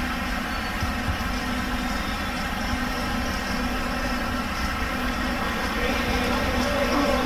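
A steady mechanical hum with a constant low rumble, unchanging throughout.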